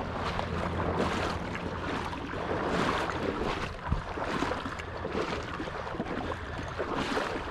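A person in waders wading through shallow marsh water: sloshing and swishing of water with each stride, some wind on the microphone.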